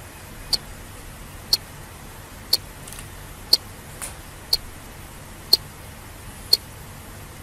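Countdown timer ticking once a second: seven sharp, evenly spaced clicks over a faint steady low hum.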